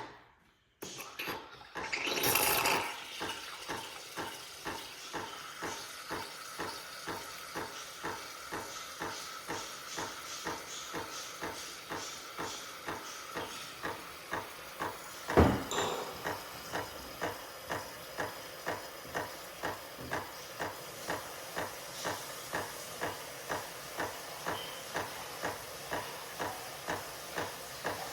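Automatic espresso machine making a latte: a steady hiss with an even pulsing about three beats every two seconds, and one sharp loud click about fifteen seconds in.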